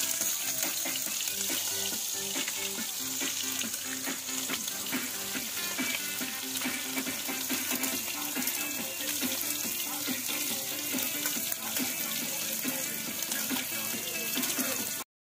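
Food sizzling as it fries in a wok over a wood fire, a steady hiss that cuts off suddenly near the end.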